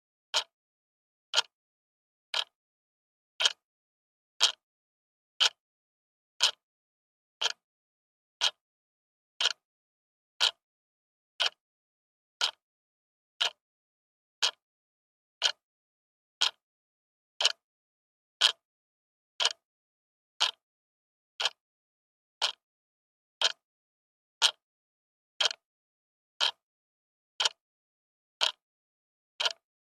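Clock ticking, one sharp tick each second with silence between.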